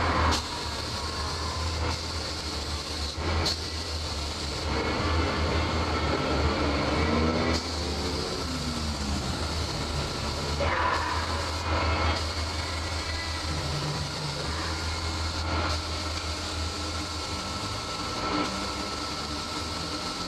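Compressed-air hiss from a gravity-feed paint spray gun spraying the car body, over a steady low machine hum.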